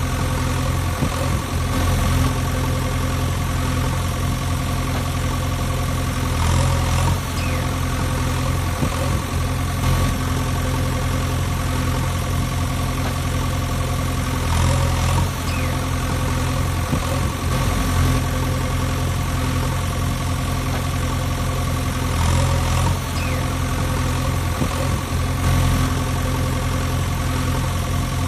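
Engine idling sound effect, a steady low diesel-like rumble that repeats as a loop about every eight seconds.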